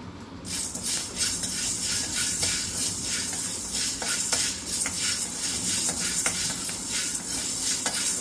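Black peppercorns being dry-roasted and stirred in a steel pan: a steady high rattling hiss, broken by frequent short scrapes and clicks against the metal, starting about half a second in.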